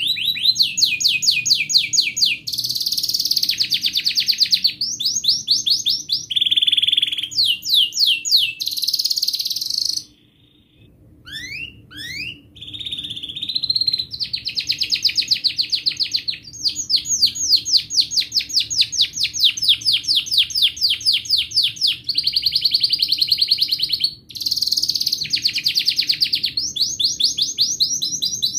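White domestic canary singing a long, continuous song of fast trills, runs of rapidly repeated high notes that switch from one trill type to the next every second or two. The song breaks off briefly about ten seconds in, then starts again with a few rising notes and carries on.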